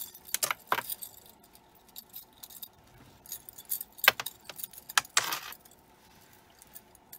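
Pieces of metal jewelry clinking and jingling together as they are handled, in a few short bursts: two sharp clicks in the first second, a clink about four seconds in, and a longer jingle just after five seconds.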